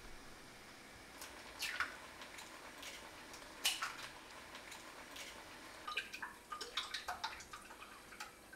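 Kitchen clinks: a sharp knock as an egg is cracked on a ceramic bowl about three and a half seconds in, then a quick run of light clicks as chopsticks beat the egg against the bowl, several a second.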